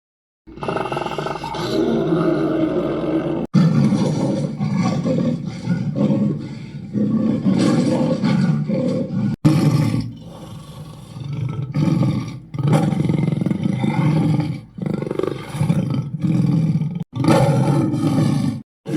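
Dragon sound effects: a string of deep roars and growls, several separate takes spliced one after another with abrupt cuts between them.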